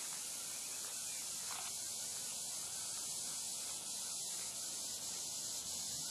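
Steady, even outdoor hiss with no distinct sounds standing out of it.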